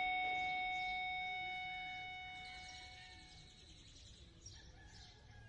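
Transition music: a single ringing tone with several overtones fading away over about three seconds, leaving faint high chirps.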